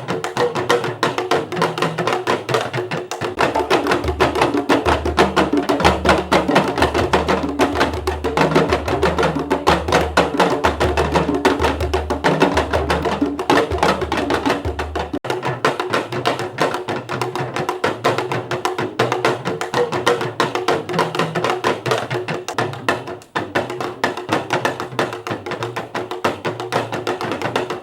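Music with a fast, busy percussion rhythm of wood-block-like strikes. A deep bass part comes in about three seconds in and drops out about halfway through.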